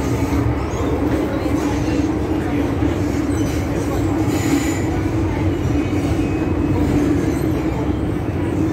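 MTR M-Train metro car running through a tunnel, heard from inside the carriage: a steady rumble of wheels on rail with a constant low hum.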